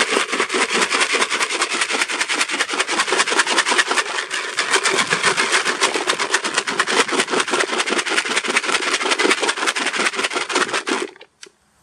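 Hard carp bait pellets and particles rattling in a plastic bucket as it is shaken and tossed to coat them in a homemade strawberry liquid. The rattle is a dense, steady stream of small clicks that stops suddenly near the end.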